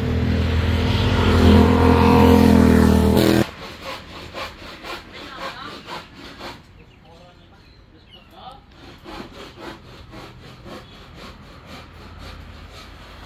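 A motor running loudly, cutting off suddenly about three and a half seconds in, followed by quieter scattered knocks and rustling.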